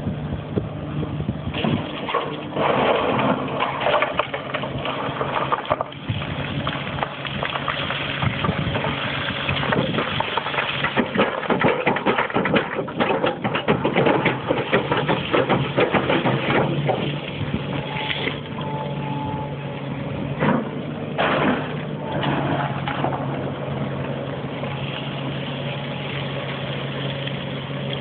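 Komatsu PC340LC excavator's diesel engine running at a steady pitch, with a dense run of irregular rattling and scraping of rock being dug through the first half or more, then a few short clatters.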